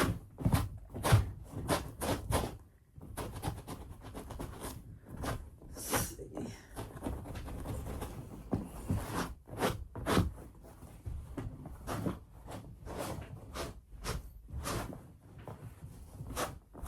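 Boots being scrubbed by hand with quick rubbing strokes, two or three a second in an uneven rhythm.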